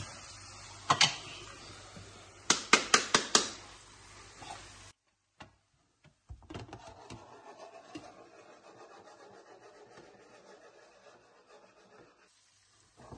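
Onions frying in a frying pan as ground dried crayfish is scattered over them: a faint steady sizzle, with one knock and then a quick run of about six taps on the pan. The sound cuts off abruptly and returns fainter after a short gap.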